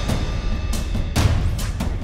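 Background music with heavy drum hits, several a second.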